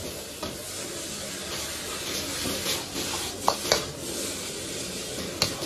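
Spinach and glass noodles sizzling as they are stir-fried and tossed in a steel wok. A few sharp clanks of the metal ladle against the wok come about three and a half seconds in and again near the end.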